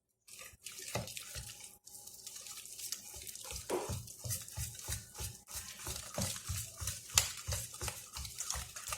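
Thick pancake batter being mixed by hand in a bowl with a little water just added: a wet, rhythmic slapping and squelching, about two to three strokes a second.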